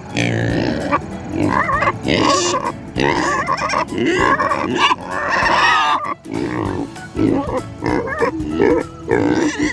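Kunekune pigs grunting and squealing in repeated, uneven calls, with music playing underneath.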